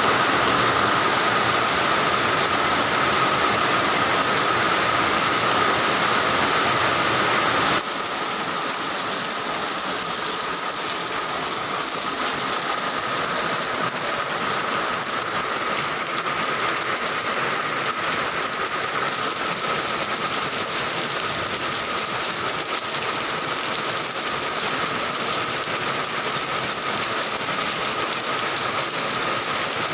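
Heavy rain falling steadily, a dense even hiss. About eight seconds in it abruptly becomes a little quieter and loses some of its low rumble.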